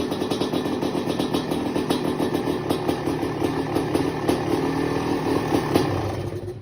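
1994 Honda CR250's single-cylinder two-stroke engine running at a fast, uneven idle with irregular crackles, on its first start after restoration. The sound drops away near the end.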